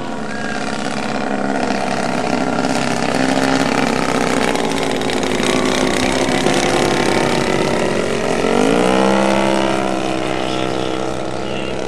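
Engines of giant-scale radio-control Piper Cub model airplanes running at high power through a takeoff and a flypast, getting louder over the first few seconds. About eight and a half seconds in, the engine pitch dips and then climbs again as a plane passes or changes throttle.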